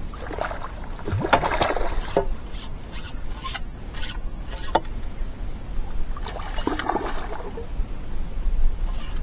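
Fixed-spool fishing reel being wound in while a hooked barbel is played on a feeder rod: scratchy rubbing noises, with a run of about six quick rasping strokes through the middle.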